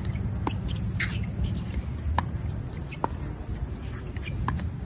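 Pickleball paddles striking a hard plastic ball in a rally: sharp, hollow pops at irregular intervals of about a second, the loudest two about two and three seconds in. A steady low wind rumble runs on the microphone underneath.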